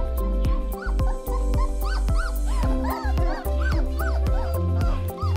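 Background music with a steady beat, and from about a second and a half in, young Weimaraner puppies whimpering and yipping in short rising-and-falling squeaks over it.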